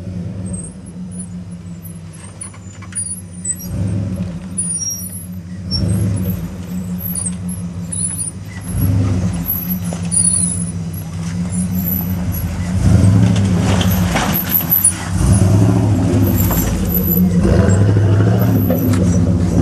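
Hummer H1 engine running under load as it crawls over a rocky dirt trail, a steady low drone that grows louder about two-thirds of the way in as the truck draws close.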